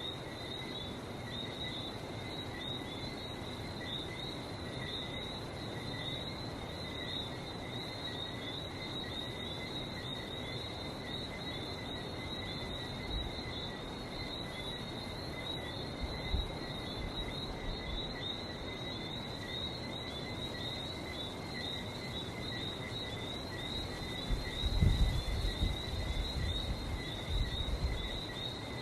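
A dense chorus of Lesser Antillean whistling frogs: countless short high chirps overlapping without a break. A low rumble comes up briefly about halfway through and again near the end, loudest about 25 seconds in.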